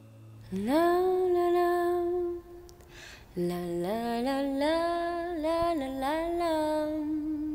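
A voice humming a slow wordless melody: a note that swoops up and is held, a short break, then a rising phrase of several notes that sways up and down.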